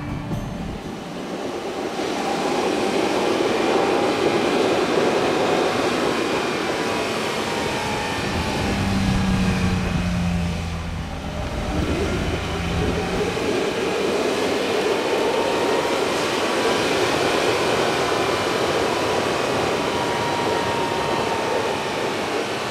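A vehicle driving on asphalt: steady tyre rumble and engine running noise, easing briefly about halfway through.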